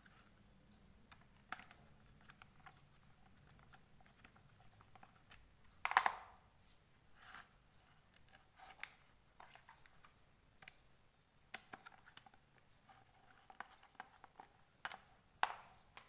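Scattered small clicks and taps of a plastic hot glue gun's housing, small screws and a screwdriver being handled as the housing screws go back in, with a louder knock about six seconds in and another near the end.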